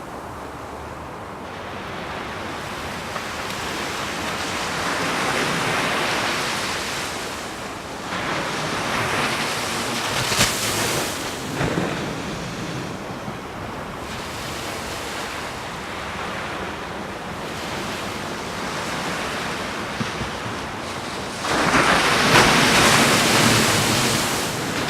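Ocean surf breaking and washing in, swelling and fading in several surges, the loudest a wave breaking near the end.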